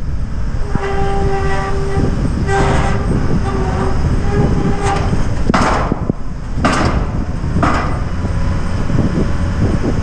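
Heavy machinery at a pile-driving rig: a steady low rumble, with a squealing, horn-like tone that comes and goes through the first half. In the second half there are three short bursts of noise about a second apart.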